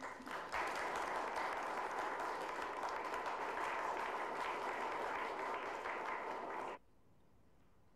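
Audience applauding, a dense round of clapping that cuts off abruptly near the end.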